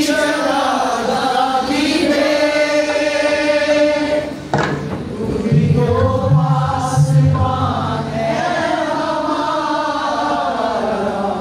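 Voices singing a worship song together in long held notes that glide from pitch to pitch, with a single sharp knock about four and a half seconds in.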